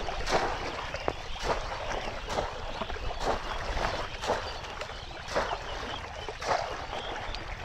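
Bamboo polo basket trap being plunged into shallow water and lifted again, splashing about once a second, with water pouring off the basket between strokes.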